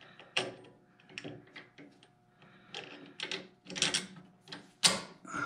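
Irregular metal clinks and taps of hand tools and bolts against steel as a part is fitted back onto a garden tractor's clutch and drive assembly, with a cluster of quick clicks a little past halfway and one sharp knock near the end.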